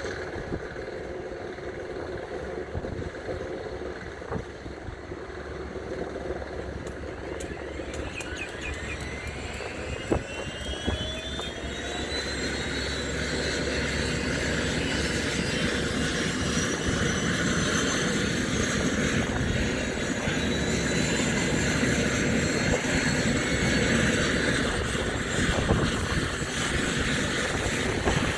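Eurocopter EC130 helicopter's turboshaft engine starting up. A whine rises steadily in pitch from about eight seconds in and the noise grows louder as the engine spools up.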